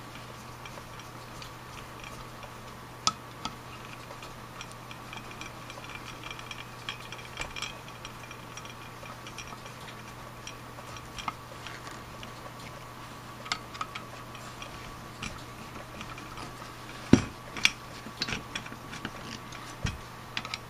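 Small metallic clicks and ticks of a screwdriver turning and seating the throttle-body screws on a Rochester Monojet one-barrel carburetor, with a cluster of louder knocks of the metal carburetor body near the end. A steady low hum runs underneath.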